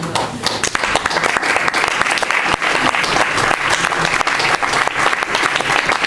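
An audience applauding: dense clapping from many hands that builds over the first second and then holds steady.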